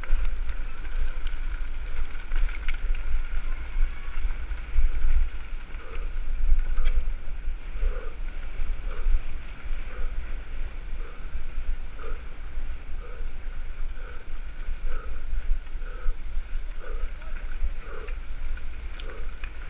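Mountain bike rolling fast over a rough dirt forest trail, heard through a handlebar-mounted camera: a steady deep rumble of the tyres and frame and wind buffeting the microphone. Faint short pulses recur about once a second.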